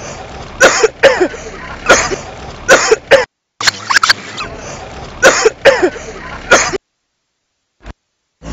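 A person coughing over and over in short, harsh coughs roughly a second apart. The sound cuts out completely twice.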